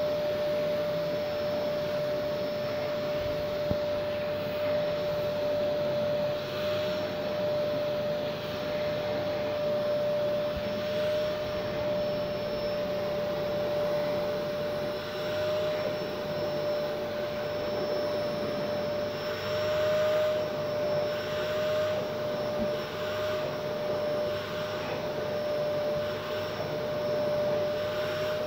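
Canister vacuum cleaner running steadily with a constant whine, its brush nozzle drawn over a cat's fur; the suction sound rises and falls slightly as the nozzle moves.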